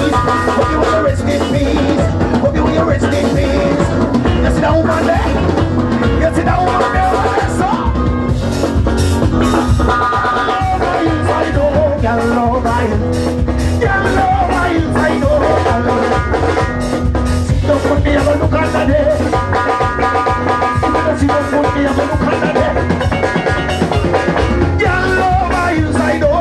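Loud band music with a steady drum beat and heavy bass under a melody line, in a ska or reggae style.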